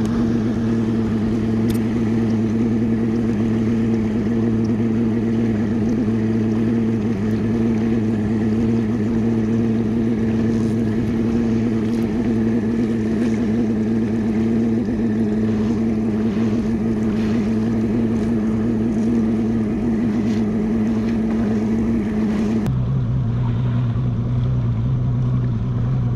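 Bass boat's Yamaha outboard motor running at a steady low cruising speed, a constant hum with water and wind hiss. About 23 seconds in the sound changes abruptly: the hiss drops away and the hum settles lower.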